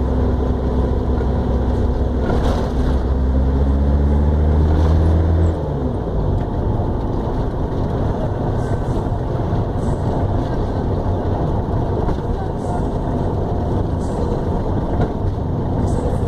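Van engine heard from inside the cabin while driving, its drone rising slowly in pitch as it pulls, then dropping away suddenly about five and a half seconds in. Steady road and cabin noise follows.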